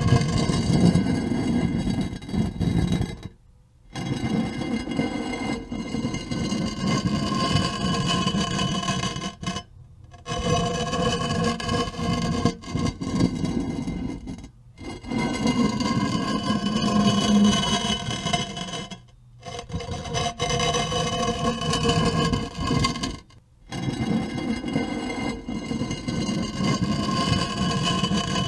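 Heavy stone tombstone slab being dragged open across stone: a grinding scrape with a ringing edge, in six long pushes of about four to five seconds each, separated by short pauses.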